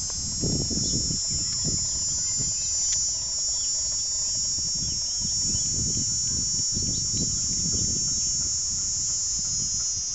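Steady, high-pitched drone of insects, with irregular low rumbling and a few faint bird chirps.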